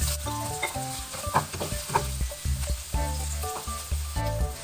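Ginger and onion frying in hot oil in a nonstick wok, sizzling steadily, with a spatula scraping and tapping the pan now and then as they are stirred.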